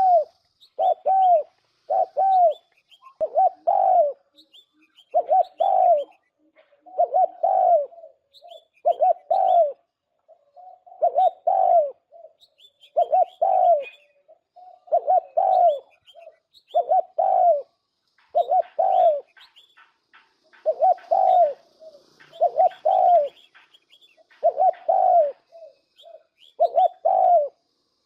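Spotted dove cooing, a recorded lure call for bird trapping played through a speaker: a steady run of short coos, about one a second and often in pairs, with faint chirps of other birds higher up.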